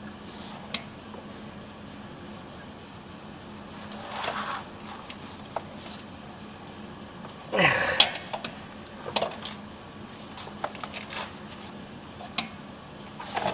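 A person straining against a seized catalytic converter mounting bolt, with hard breaths about four seconds in and a grunting exhale about eight seconds in, followed by scattered light metallic clicks from the wrench.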